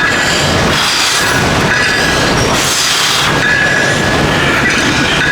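Lat pulldown machine being worked through a set: the cable and weight stack run with a squealing metallic whine that swells and fades about every one and a half to two seconds.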